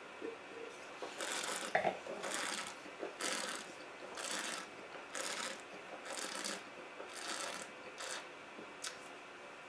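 A wine taster working a mouthful of wine, drawing air through it in short hissing slurps, about eight in a row at roughly one a second.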